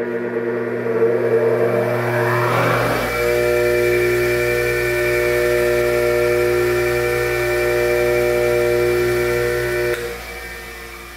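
Bench grinder motor spinning its grinding wheel up to speed over the first few seconds, then running at a steady speed with a mains hum. It is switched off about ten seconds in and starts to coast down. The run is a vibration check while the wheel is being balanced.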